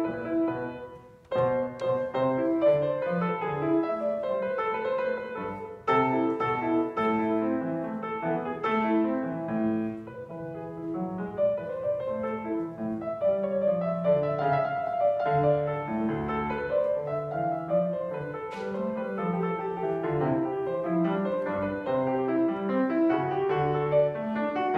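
Grand piano played solo: a steady run of notes in both hands, with a brief break about a second in before the playing resumes.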